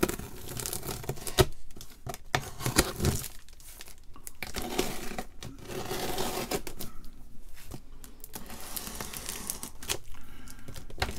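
Packing tape being pulled and torn off a cardboard shipping box, with plastic crinkling and a few sharp clicks and knocks against the cardboard.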